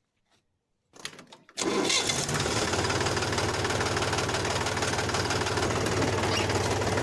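Mini tractor engine starting: a short faint rattle, then the engine catches about one and a half seconds in and runs at a steady, even chug.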